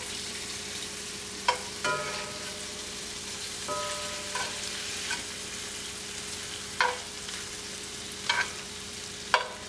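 Shrimp sizzling in butter sauce in a large cast iron skillet, a steady frying hiss. A metal utensil scrapes and clinks against the pan several times, some clinks ringing briefly, as the shrimp are stirred and turned.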